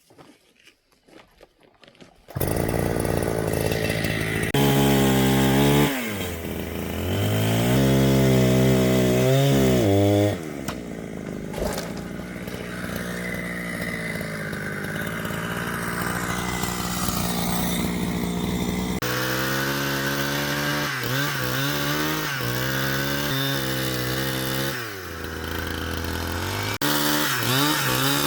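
Two-stroke chainsaw cutting wood: it starts about two seconds in, and the engine pitch rises and falls again and again as the throttle is worked and the saw drops under load in the cut, with a steadier high-speed stretch in the middle. The sound changes abruptly a few times.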